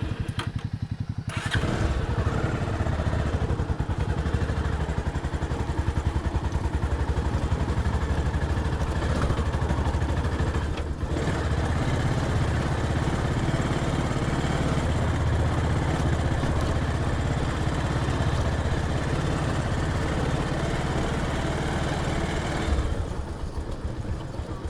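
Motorcycle engine running on a ride, picking up about a second and a half in and running steadily, then easing off near the end.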